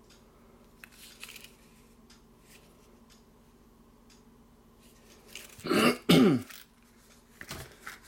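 A man clears his throat with two loud rasps in quick succession about six seconds in. Before that there are faint soft handling sounds of a leather lighter pouch being turned in the hand.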